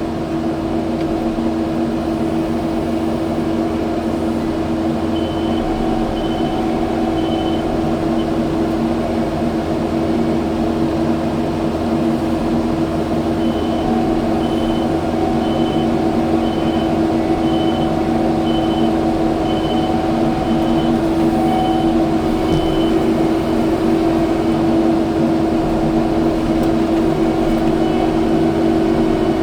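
Kubota skid steer's diesel engine running steadily, with its backup alarm beeping evenly at about one and a half beeps a second in two stretches: briefly about five seconds in, then for about ten seconds midway.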